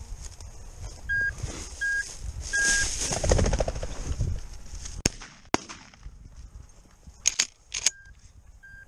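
Footsteps crashing through dry grass to flush a pheasant, with three short electronic beeps. About five seconds in, a pump-action shotgun fires, with a second sharp crack half a second later, followed by a few metallic clicks.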